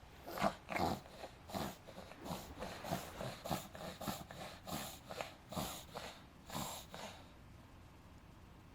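A five-month-old pug puppy reverse sneezing: a quick, rhythmic run of sharp, noisy breaths drawn through the nose, about two to three a second, that stops about seven seconds in.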